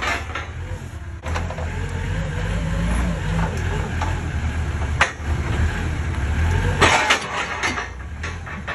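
A vehicle engine running with a steady low rumble that starts about a second in and stops near the end. There is a sharp click about five seconds in and a short rush of noise as the rumble ends.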